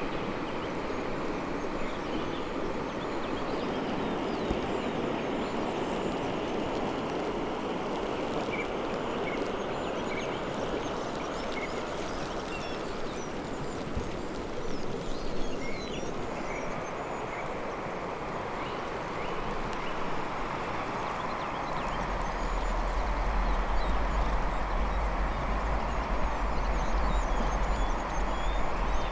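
Steady rushing outdoor background noise with faint, scattered high bird calls. A low rumble joins about two-thirds of the way through.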